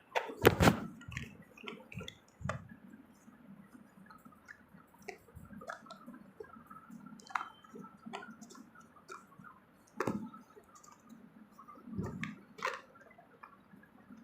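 Scattered clicks and knocks of a hand-held torch and its batteries being handled while it is loaded, with the loudest knock about half a second in and further sharp knocks near ten and thirteen seconds.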